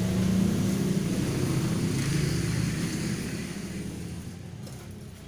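An engine running with a steady low hum, loudest in the first few seconds, then fading away over the last two seconds.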